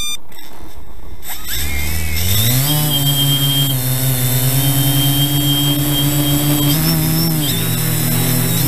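A few short electronic beeps, then about a second in the TBS Discovery quadcopter's brushless motors and propellers spin up with a rising whine as it is launched from the hand. They settle into a steady buzzing hum with a high whine while it climbs, heard close from its onboard camera, and the motor pitch goes up and then down near the end.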